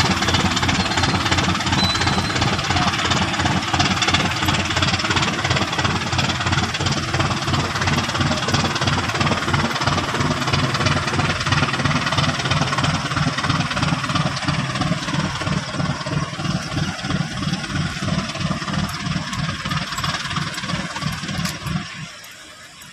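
Boat engine running steadily close by with a fast, even knocking beat; it drops away sharply near the end.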